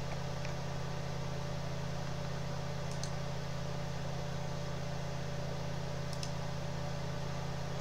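Steady electrical hum with a constant hiss of background noise, and two faint brief ticks about three and six seconds in.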